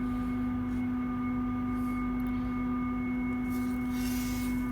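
A steady electrical hum with several overtones, unchanging throughout, with faint rustling of handling near the end.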